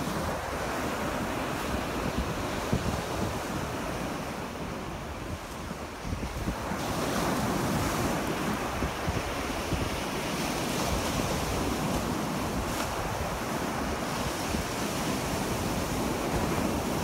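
Surf breaking on a sandy beach, a continuous wash of waves, with wind buffeting the microphone. The wash grows fuller about seven seconds in.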